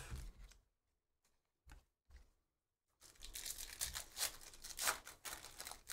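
Two brief knocks, then about three seconds in a foil trading-card pack is torn open, its wrapper tearing and crinkling in quick, sharp crackles.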